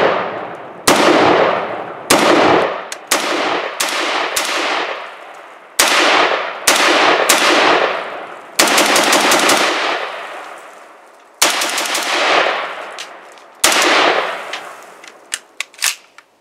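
Semi-automatic 5.56 NATO CETME LC carbine firing a string of about a dozen single shots at an uneven pace, each with a long echoing tail. A few light clicks come near the end.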